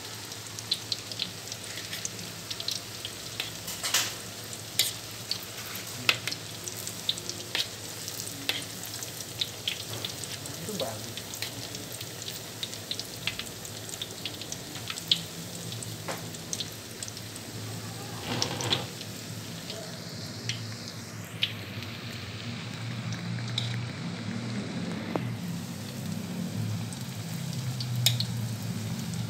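Battered fritters deep-frying in hot oil in a wok: a steady sizzle with many sharp crackling pops, and now and then a spatula turning the pieces in the pan.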